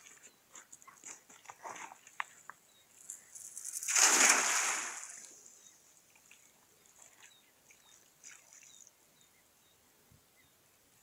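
A cast net thrown from the shore lands on the water with a splash about four seconds in, the loudest sound here, fading over a second or so. Before it come scattered light crunches and clicks on the shoreline stones.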